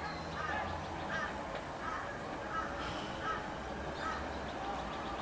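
Australian white ibis calling: a run of about seven short calls, one roughly every two-thirds of a second.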